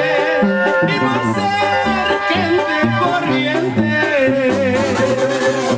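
Latin dance music played loud, with singing over a pulsing bass line and instruments.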